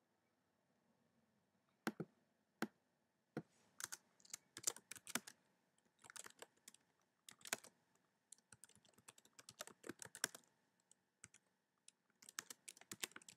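Typing on a computer keyboard: faint keystrokes in quick runs with short pauses, starting about two seconds in.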